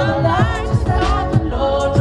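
Loud pop music with a singer's voice sliding between notes over a steady beat.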